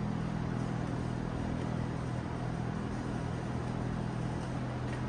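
A steady, unchanging machine hum with a low drone.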